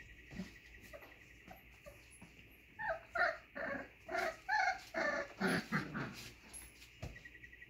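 Doodle puppies whimpering and yipping: a run of about eight short, pitched calls over some three seconds, starting about three seconds in, with small scuffling ticks before them.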